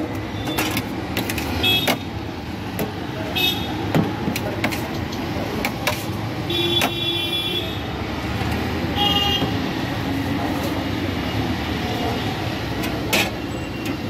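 Steady traffic rumble of a busy street, with several short vehicle horn toots and sharp clicks of a spoon knocking against steel pots.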